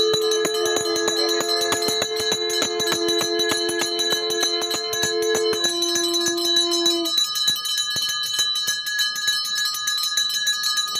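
Pooja hand bell rung rapidly and continuously. Two steady held tones sound alongside it and stop about six and seven seconds in.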